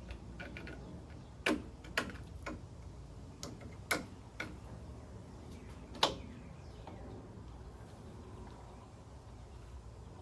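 About seven sharp clicks and knocks over the first six seconds, the loudest about six seconds in, as the coolant burping funnel kit is handled and removed at the radiator, over a low steady hum.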